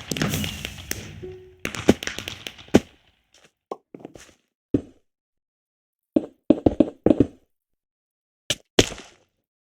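Keys of a Logitech G213 Prodigy Mech-Dome membrane keyboard being pressed: scattered single taps, and a quick run of five or six presses a little past the middle. This follows a loud crashing sound with falling tones that dies away over about the first three seconds.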